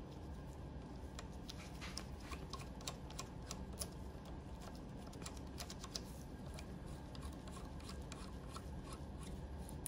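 Faint, irregular small clicks and rubbing of gloved hands tightening a photo eye sensor into its mounting bracket and handling its plastic parts, over a low steady hum.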